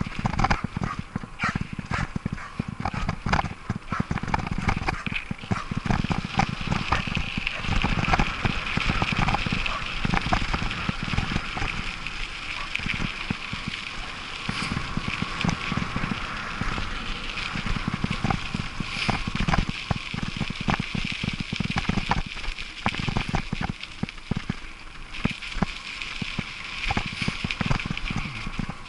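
Bicycle rolling over a rough, rutted dirt road: tyres crunching on the loose surface and a constant run of knocks and rattles from the bike and camera mount jolting over bumps, over a low rumble.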